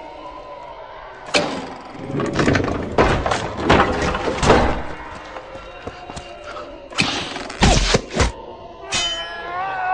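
Heavy thuds and bangs on a wooden door in quick clusters, then a man cries out near the end, his voice falling in pitch.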